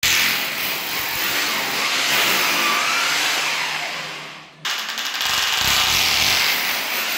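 Corded electric drill boring into a ceramic floor tile. It runs, winds down about four seconds in, then starts again abruptly and bites back in.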